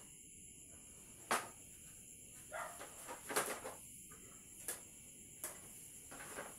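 A handful of short, sharp knocks of metal baking trays being slid onto oven racks, over a steady high-pitched chirring of crickets.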